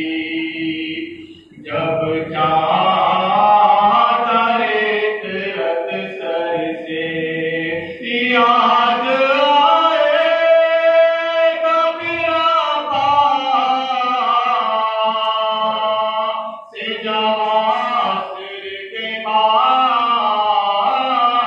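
A man chanting a noha, an Urdu lament, solo and unaccompanied into a microphone, with long held notes that bend in pitch. He pauses twice for breath, about a second and a half in and near the end.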